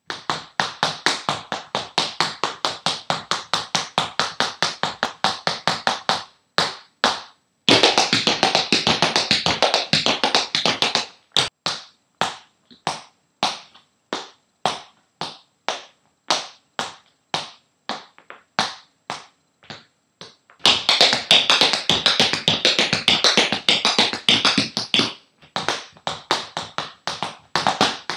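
Tap shoes striking a hardwood floor in an unaccompanied tap dance: three long flurries of rapid taps, separated by stretches of slower, evenly spaced steps of about two or three a second.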